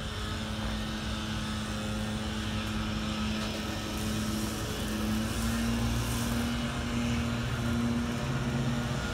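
A steady low motor hum whose pitch rises slightly about five seconds in.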